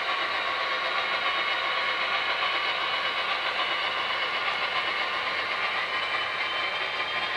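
HO scale double-stack intermodal well cars with all-metal wheels rolling past on model railroad track, a steady even rolling noise with no breaks.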